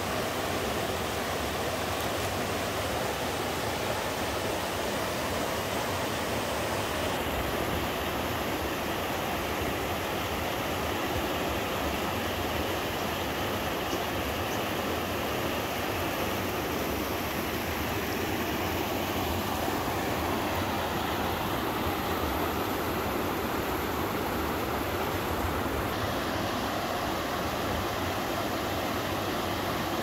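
Small three-tiered waterfall on a mountain stream, water cascading over boulders into a pool with a steady, even rushing.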